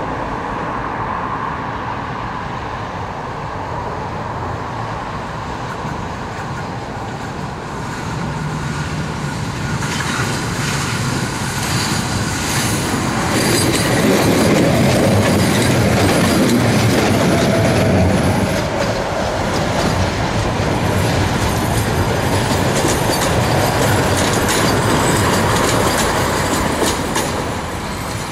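Tram running on its rails, growing louder from about eight seconds in and loudest in the middle, with the wheels clicking over rail joints.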